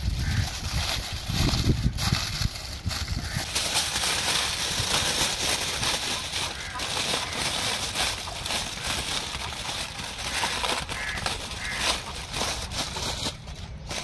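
Aluminium foil crinkling and crackling as gloved hands pull it open and crumple it back from a roast on a steel tray.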